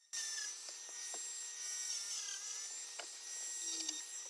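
Handheld rotary tool running at steady high speed with a high whine, its small bit grinding against the laptop's case. It starts up abruptly.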